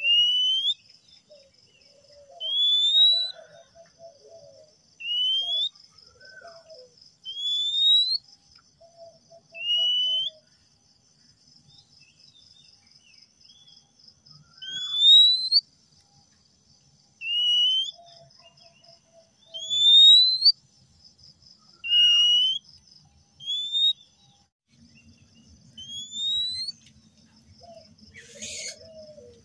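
Male oriental magpie-robin singing a series of clear rising whistles, one about every two seconds. Behind them runs a steady, high pulsing buzz.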